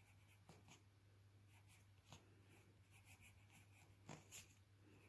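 Faint scratching of a pencil writing a word in cursive on a workbook page, in short irregular strokes, over a steady low hum.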